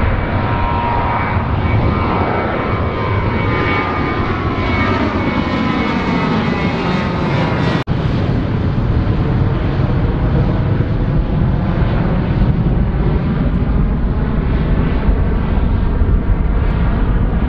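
Boeing C-40A Clipper's twin CFM56 turbofans at climb power as the jet passes overhead after takeoff: a loud, steady roar with a whine that slides downward in pitch, then a deep rumble as it climbs away. The sound cuts out for a moment about eight seconds in.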